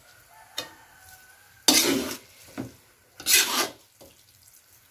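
Metal spatula scraping and turning noodles being stir-fried in a large metal wok: two loud scrapes about two and three and a half seconds in, with a few fainter knocks around them.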